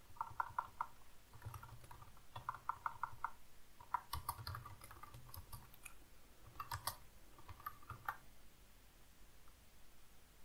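Computer keyboard being typed on, short bursts of keystrokes with brief pauses between them, stopping about eight seconds in.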